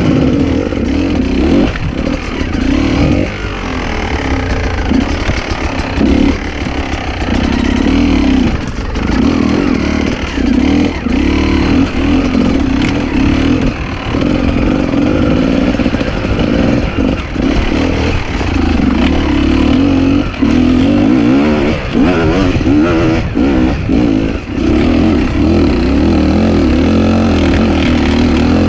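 Enduro dirt bike engine revving on and off as it is ridden over rough ground, the throttle opening and closing every second or two, with occasional knocks.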